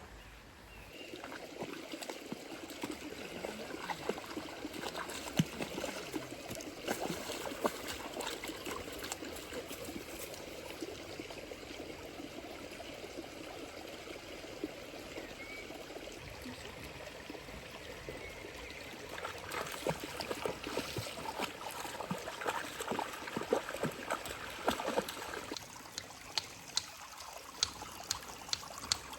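Water trickling and splashing, a busy run of small splashes and clicks that starts about a second in, with sharper clicks near the end.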